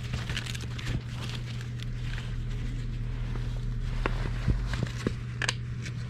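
Gas furnace running with a steady low hum while its blower motor stays off, with scattered clicks and knocks of handling at the unit, most of them in the second half.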